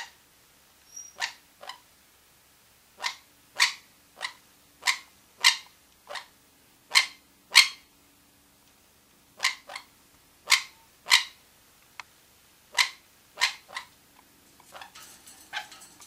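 Conures giving short, sharp, loud calls over and over, about one or two a second with a brief pause midway, then softer chatter near the end.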